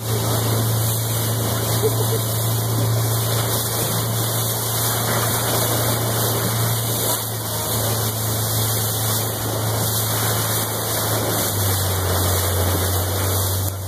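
Boat engine running under way with a steady low hum, beneath a loud rush of wind and water spray off the hull; the engine note drops a step near the end.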